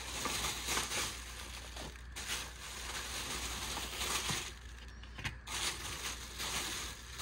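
Irregular rustling and crinkling of items and packaging being handled, with small clicks and knocks.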